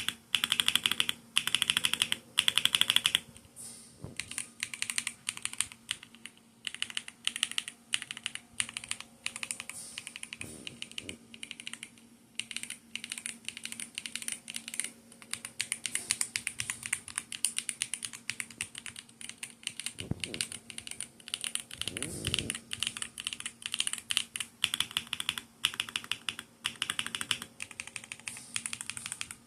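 Rapid typing on a Redragon K709 65% mechanical keyboard: a dense run of key clicks throughout, loudest in a quick flurry over the first three seconds. A couple of dull low thumps come about two-thirds of the way in.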